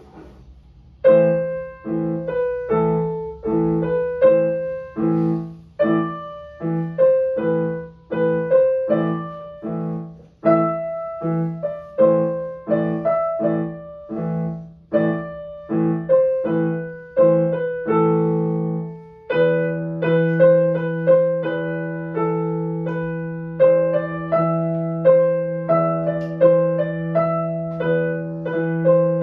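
Digital piano playing a piece, starting about a second in. Detached notes come at about two a second over a repeated bass. About two-thirds of the way through, a low bass note is held under a quicker melody.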